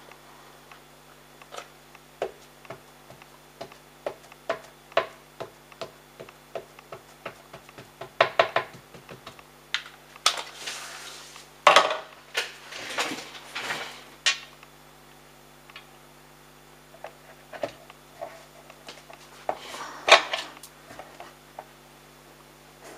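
Light taps and clicks as a VersaFine Clair ink pad is dabbed onto a wood-mounted rubber stamp on a glass mat, with a quick run of taps about eight seconds in. Later, brief rustling and small wooden knocks as the stamp block is set into a stamp positioner and pressed down onto the card.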